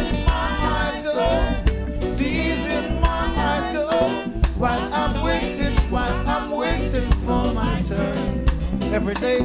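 Live reggae band playing with electric bass, drum kit and keyboard, with singing over the groove.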